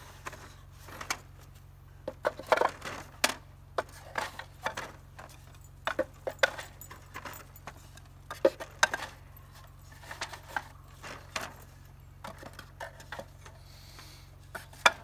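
Wooden beehive frames being set one by one into a wooden hive box: irregular wooden clicks and knocks as the frames go in and bump against each other and the box, with the loudest knock near the end.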